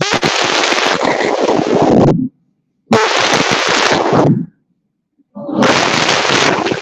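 A large chorus of schoolchildren reciting a poem in unison, loud and harsh through a laptop webcam microphone, in three phrases with abrupt dead-silent gaps between them.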